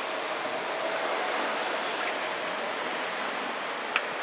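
Steady hiss of outdoor background noise, with a faint thin hum underneath and one sharp click near the end.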